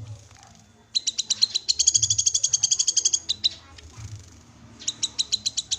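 Cucak kinoi call: two bouts of rapid, high, evenly repeated chirps, the first lasting about two and a half seconds and the second shorter, near the end.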